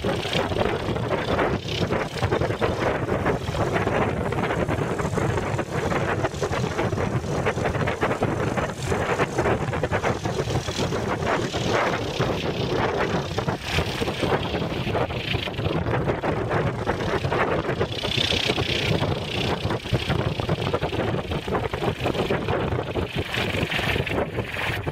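Strong wind buffeting the microphone: a loud, continuous rushing rumble that swells and dips with the gusts.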